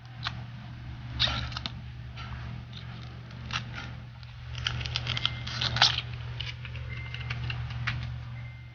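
Thin protective plastic film being peeled off the clear hard back of a phone case, crackling in irregular bursts with a few louder crackles, over a steady low hum.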